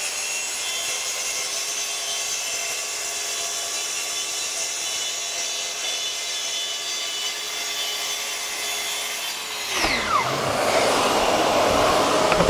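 Festool track saw making a slow forward cut through a 16 mm board along its guide rail: a steady high motor whine with the blade cutting. About ten seconds in the saw is switched off and its pitch falls as it winds down, leaving the steady rush of the dust extractor still running.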